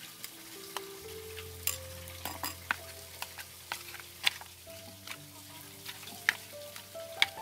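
Wooden chopsticks stirring chunks of wet, marinated pork in an aluminium tray: a soft squelching mix broken by sharp clicks and taps of the chopsticks against the tray, the loudest near the end. Soft background music with held notes plays underneath.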